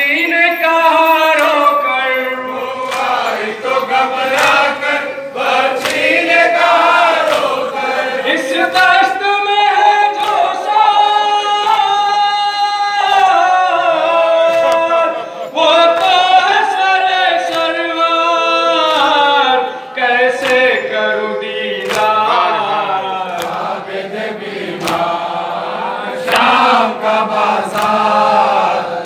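A crowd of male mourners chants a noha, a Shia lament, in unison with long held notes that rise and fall. Scattered sharp slaps run through it, from hands beating chests in matam.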